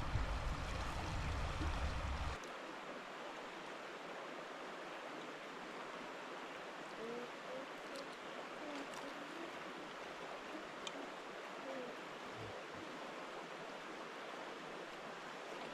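River water flowing past in a steady rush. For the first couple of seconds a loud low rumble sits under it, then cuts off abruptly.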